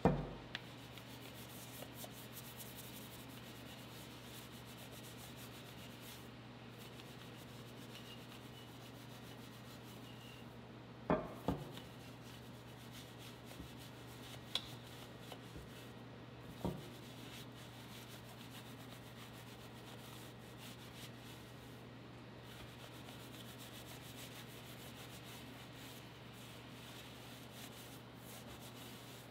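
A wheel brush scrubbing the spokes and barrel of a soapy car wheel, a steady wet rubbing, over a constant low hum. A few sharp knocks stand out: one right at the start, two close together about eleven seconds in, and another a few seconds later.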